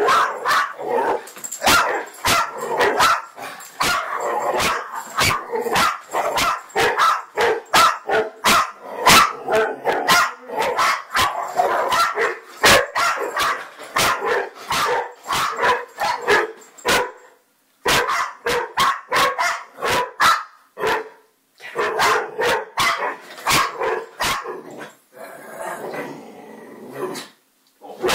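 Dog barking rapidly and repeatedly in excitement, nearly without pause, with a few short breaks in the second half.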